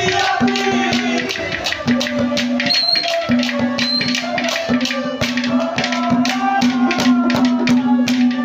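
Instrumental interlude of Haryanvi ragni folk music: quick, steady hand-drum strokes under a melody line and a held low note that breaks off and resumes several times.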